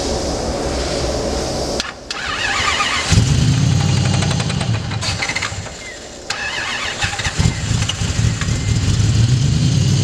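Supercharged V8 engine in a Miata race car cranked and started twice, running briefly between the starts; the engine has a rod knock.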